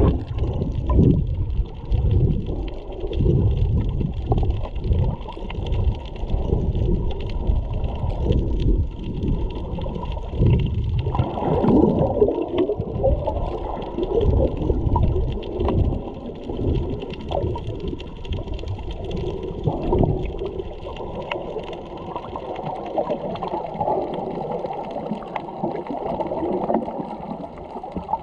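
Muffled underwater water noise heard through a camera's waterproof housing: sloshing and gurgling with irregular low thumps through the first half, settling into a steadier churn later.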